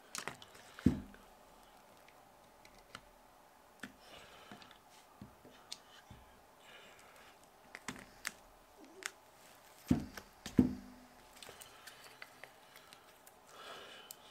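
Lotus Elan M100 rear brake caliper and its metal parts being handled and fitted together on a cardboard-covered bench: scattered clicks and light knocks, with heavier thumps about a second in and twice around ten seconds in as parts are set down. A short rustle near the end.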